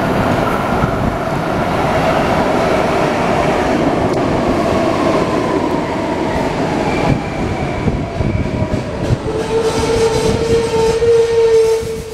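PATCO Speedline train pulling into a station and slowing to a stop: a rumble of wheels on rail with a whine that falls slowly in pitch as it brakes, then a loud steady tone over the last few seconds as it halts.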